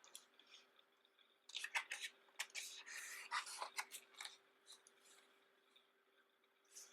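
Pages of a large, thick photobook being turned and handled: soft rustles and paper sliding on paper, mostly in a cluster after about a second and a half, then a few isolated touches.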